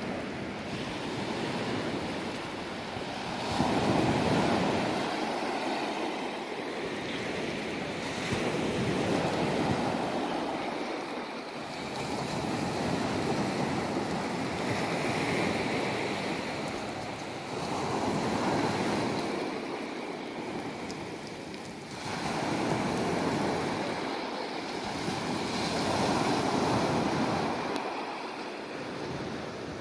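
Small waves breaking and washing up a sandy, pebbly beach, the surf swelling and fading every four or five seconds.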